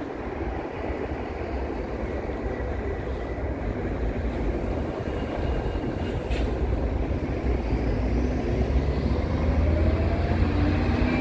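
Steady rumble of a passing train, with strong wind buffeting the microphone. Near the end an engine rises in pitch as a bus moves off.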